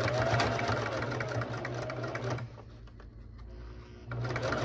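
Singer electric sewing machine running a wide zigzag stitch in two runs. It stops about two and a half seconds in and starts again about a second and a half later, as it stitches over the rope core of a feather boa.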